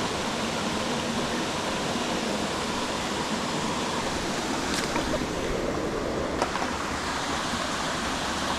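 Rushing water of a mountain stream, a steady even hiss, with two short sharp clicks about five and six and a half seconds in.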